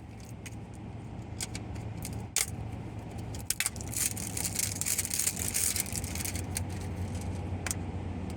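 Plastic blind-bag packaging crinkling and tearing as it is opened by hand: irregular crackles, denser about halfway through, over a steady low hum.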